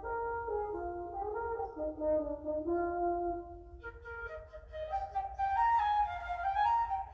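A French horn plays a short melody in low held notes. About four seconds in, a flute takes over with a higher, brighter melody.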